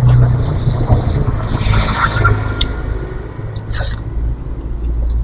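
A steady low rumble, with a brief hissing rustle about two seconds in and a few soft clicks.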